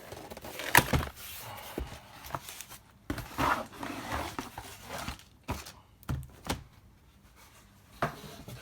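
A cardboard box being torn open and its packaging handled: rustling and tearing with scattered sharp knocks and clicks, the loudest about a second in, as a hard plastic graded comic case is pulled out and set down.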